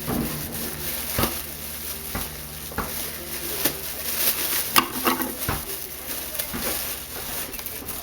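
Packaging being opened by hand: irregular rustling and crinkling, with scattered sharp clicks and snaps.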